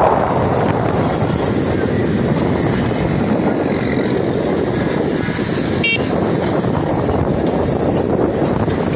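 Wind rushing over the microphone and the running noise of a motorcycle moving through city traffic, with a short horn beep about six seconds in.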